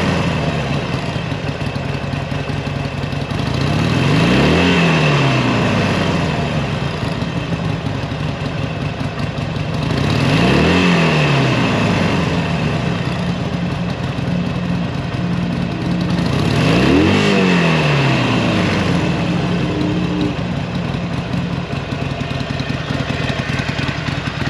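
Harley-Davidson Sportster 883 Iron's air-cooled V-twin, on its stock exhaust, idling and blipped three times with the throttle, each rev rising quickly and falling straight back to idle. It settles to a steady idle for the last few seconds.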